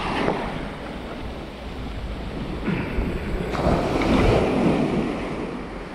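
Wind buffeting the microphone over surf breaking on the beach, the noise swelling louder about three and a half seconds in.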